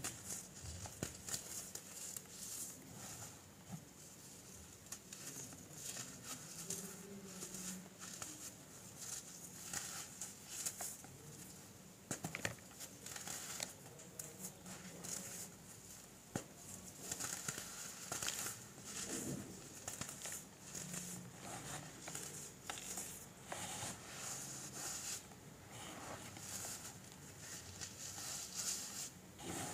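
Molded blocks of baking soda crunching and crumbling as fingers squeeze and break them, in a steady run of many small, irregular crackles, with chunks falling into loose powder.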